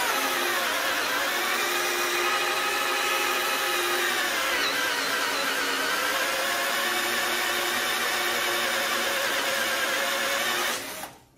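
Brushed motor of a Wesco WS2502K2 12V cordless drill/driver whining steadily as it bores a 1-inch three-point wood bit into timber, without hammer action. Its pitch sags twice under the heavy load, about a second in and again about five seconds in, as the motor strains without stalling. It stops shortly before the end.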